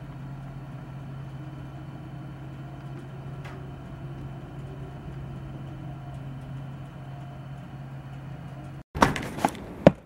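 Blizzard wind heard muffled through a window, under a steady low hum. Near the end, outdoors, strong gusts blast straight onto the microphone in loud, uneven bursts.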